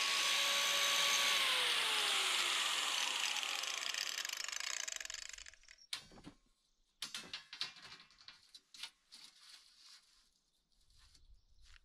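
A power tool's motor runs steadily, then winds down with its pitch falling and fades out about halfway through. A string of irregular clicks and knocks follows.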